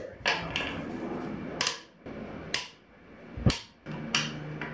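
Sharp metal knocks and taps, about five spread through a few seconds, from tools working on a manual transmission's case; the loudest, a little past three seconds in, is a heavier thump.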